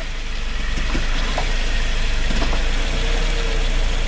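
2018 Subaru Outback 2.5i's flat-four engine running at low speed as the car creeps forward, with a few faint short knocks about one, one and a half, and two and a half seconds in.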